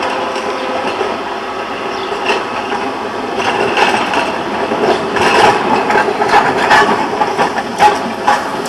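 Narrow-gauge open-top double-deck electric tram running toward the listener on its rails, its wheels rumbling and clicking over the track. The clicking and rattling grows louder and busier from about three and a half seconds in, with sharp knocks near the end as it comes close.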